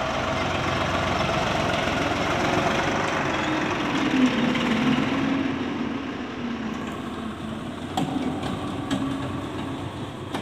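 Eicher 551 tractor's diesel engine running steadily, its note wavering and rising a little through the middle. A single sharp knock near the end.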